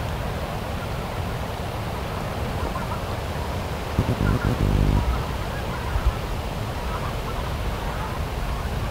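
A duck gives one low quack, about a second long, some four seconds in. Under it is a steady low rumble of wind on the microphone.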